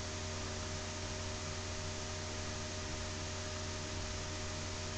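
Steady electrical hum with a low background hiss, unchanging throughout.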